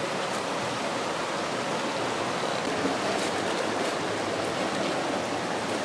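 Steady rush of river water running over rocks in a shallow, rocky stream.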